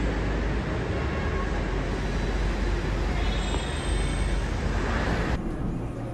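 Train rumbling loudly beside an elevated station platform, with a faint high wheel squeal about three seconds in. About five seconds in it cuts to the quieter, duller running noise heard from inside a moving train.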